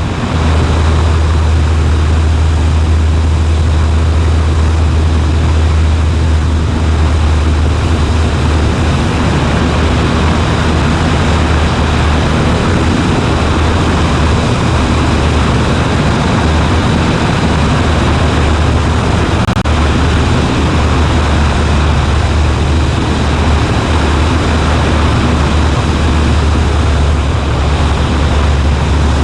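Cessna 140A's piston engine and propeller droning steadily in flight, with a strong low hum and no change in pitch or level.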